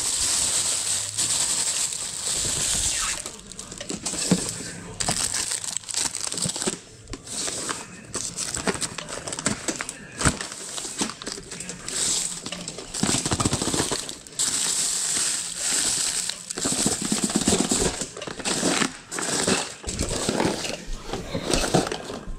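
A thin plastic shopping bag rustling and crinkling as it is handled, along with plastic storage drawers being slid and handled, with scattered light knocks.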